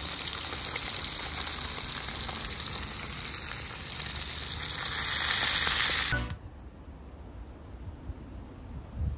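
Jackfish deep-frying in piping-hot oil: a dense, steady sizzle that swells about five seconds in and stops abruptly after about six seconds. After that it is much quieter, with a few faint high chirps.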